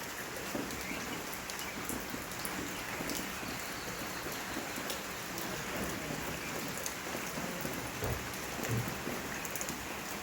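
Steady rain falling, a continuous hiss dotted with many small drop impacts, with a couple of brief low bumps about eight seconds in.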